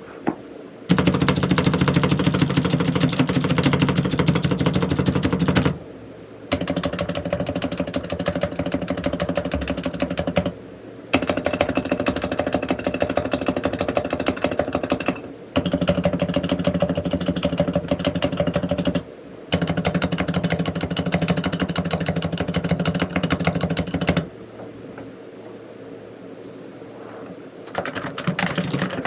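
Fast typing on a Realforce R3 silenced (저소음) tenkeyless keyboard with 45 g Topre electrostatic-capacitive switches: a dense, muted patter of keystrokes in runs of about four to five seconds, broken by short pauses. It goes quieter for a few seconds near the end and then picks up again.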